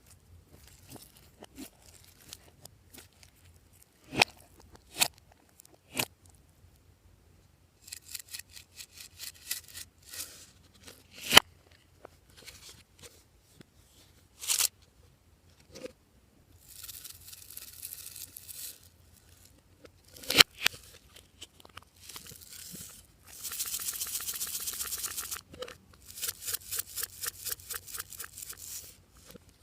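Glossy slime being pressed, stretched and mixed by hand: several sharp clicks and snaps, runs of rapid little pops, and two stretches of crackly hiss of a few seconds each.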